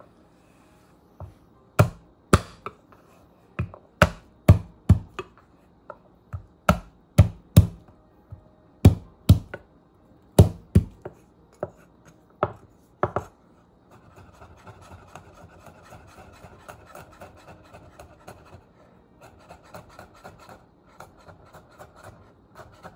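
Steel cleaver coming down hard on a wooden cutting board about twenty times at an uneven pace, smashing and chopping garlic cloves. After about fourteen seconds it gives way to a much quieter stretch of fast, light chopping as the garlic is minced.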